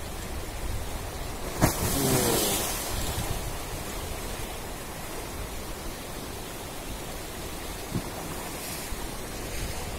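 Swollen, fast-flowing floodwater rushing past an eroding mud riverbank, a steady rushing noise with wind rumbling on the microphone. About one and a half seconds in there is a sharp knock followed by a brief louder rush, and a smaller knock near the end.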